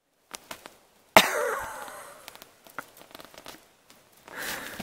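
A person's cough, starting suddenly and loudly about a second in and tailing off, with a second, softer noisy stretch near the end.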